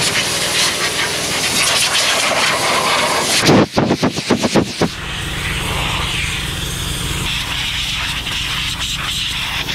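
Compressed air hissing from a hand blow gun as caked dust is blown off a peanut picker and a tractor, over the steady low drone of an engine running. A run of loud, choppy blasts comes about three and a half seconds in and stops about a second later.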